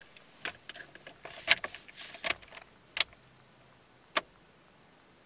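Irregular sharp clicks and knocks, thickest in the first two and a half seconds, then single ones about three and about four seconds in. No engine is running.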